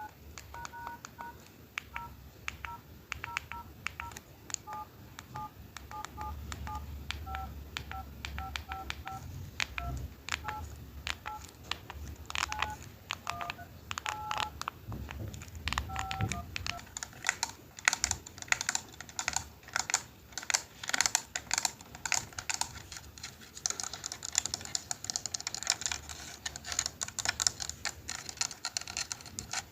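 Mobile phone keypad being pressed, each key giving a short two-note dialing beep along with its click, at an uneven dialing pace. From a little past halfway the beeps stop and the plastic keys are clicked rapidly and densely, like typing.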